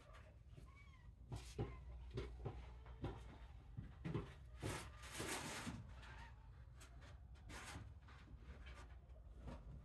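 Very young kittens mewing faintly, with a short high mew about a second in, amid soft rustling and scrabbling.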